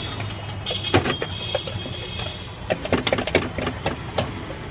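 Sharp metallic clinks and knocks of a spoon against a steel tumbler and tray, several in a quick run about three seconds in, over a steady low hum.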